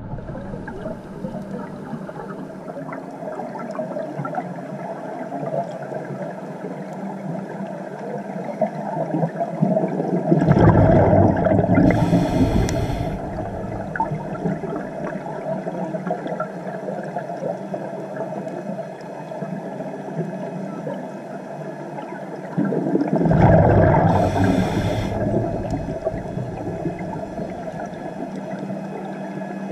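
Underwater sound of scuba breathing through a regulator: two surges of gurgling exhaled bubbles, about ten and twenty-three seconds in, each ending in a short high hiss, over a steady underwater hum.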